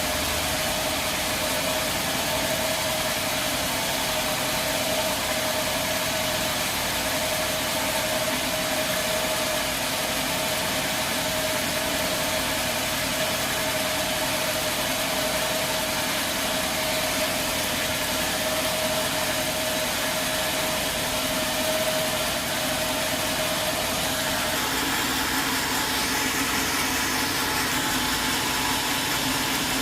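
Sawmill machinery running steadily, a loud even mechanical noise with a steady high whine over it that stops about 24 seconds in.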